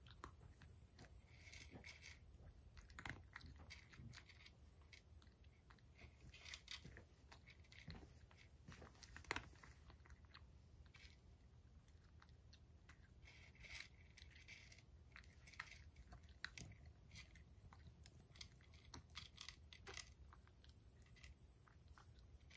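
A domestic cat eating dry kibble: faint, irregular crunching and chewing as it bites and crunches the pellets, with a few sharper crunches.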